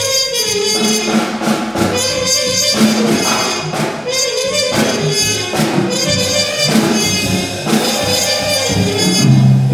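Free-improvised jazz on trumpet and drum kit: the trumpet plays short phrases whose pitch bends and slides, over loose drumming with cymbal strikes and drum hits.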